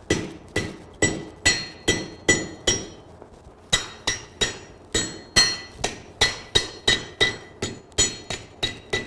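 Blacksmith's hammer striking hot half-inch steel stock on an anvil, shaping a forged leaf. The blows come steadily, about two and a half a second, each with a short metallic ring.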